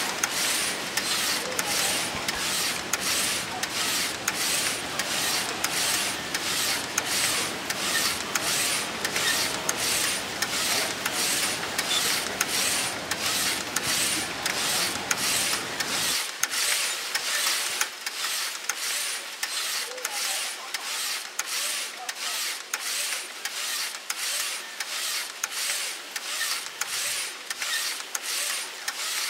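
Rhythmic mechanical rasping, a regular stroke about twice a second, like a machine working at a steady pace; about two-thirds of the way through the deep low end drops away while the rhythm carries on.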